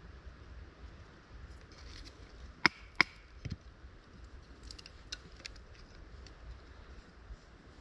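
Split wooden kindling sticks knocking against each other as they are stacked by hand into a teepee fire lay. Two sharp knocks come close together about two and a half seconds in, followed by a few lighter clicks.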